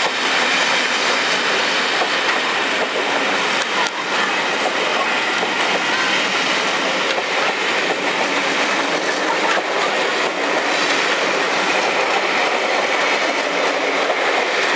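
Passenger coaches of a departing train rolling past close by, a steady rumble with wheels clicking over the rail joints.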